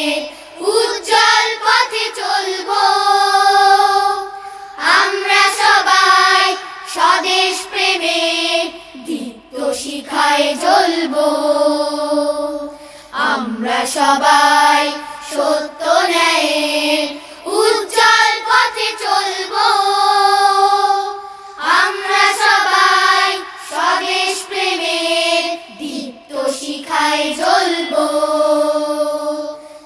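A chorus of children, girls and boys, singing a Bangla gojol (Islamic devotional song) together in long, held phrases with short breaks between lines.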